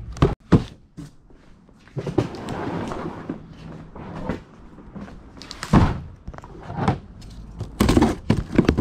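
Things being handled while boxes are unpacked: a string of knocks and thunks with a stretch of rustling. The loudest thump comes about six seconds in, and a cluster of knocks follows near the end.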